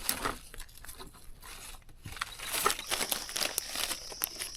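Dry leaf litter crackling and rustling in quick, irregular crunches as someone moves through and handles the forest floor while picking mushrooms. A steady high buzz comes in about three seconds in.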